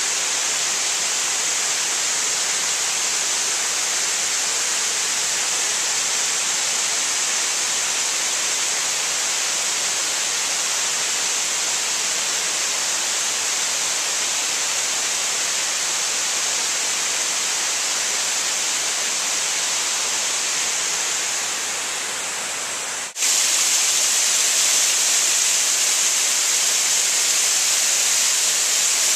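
Waterfall rushing steadily. It fades slightly, then cuts abruptly to a louder, hissier rush of falling water about two-thirds of the way in.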